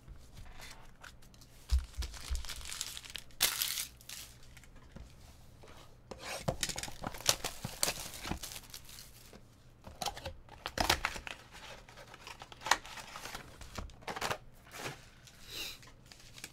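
Trading card packs being torn open by hand, their wrappers crinkling in irregular rustles and sharp tears. There is a soft low bump about two seconds in.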